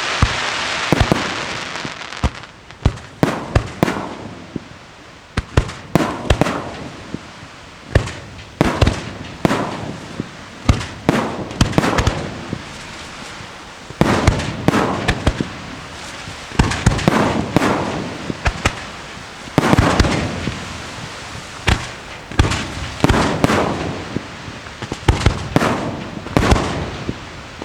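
Aerial fireworks display: a long run of shell bursts, many sharp bangs in irregular clusters, some followed by a crackling tail.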